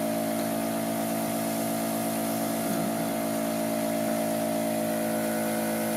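Iwata Silver Jet airbrush compressor running steadily with an even motor hum, while the airbrush, set to 10 PSI, hisses as it sprays.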